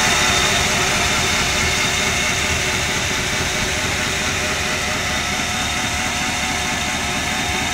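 GMC C1500 pickup's engine idling steadily with the hood up.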